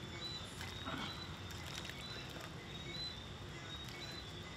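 A night chorus of short, high chirps repeating about twice a second over a steady low hiss.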